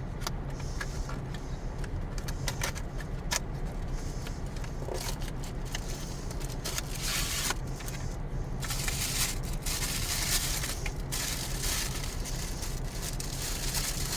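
A meal toy's packaging being torn open and handled: crinkling and rustling with scattered sharp clicks and crackles. The rustling grows denser and louder about halfway through. A steady low hum runs underneath.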